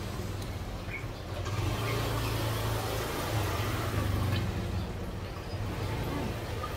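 Motor vehicle engine running close by: a low, steady hum that gets louder about a second and a half in.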